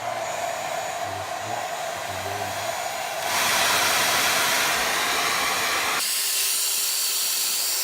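Hair dryer blowing steadily, used to defrost ice in a Samsung double-door fridge's fan area to quiet its fan noise. The hiss grows louder about three seconds in and thins out, losing its low rumble, about six seconds in.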